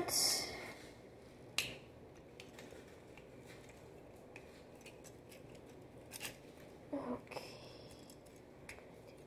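Plastic Transformers Optimus Prime action figure being twisted and folded by hand: a few scattered sharp clicks of its plastic joints and parts snapping into place, with quiet handling between them.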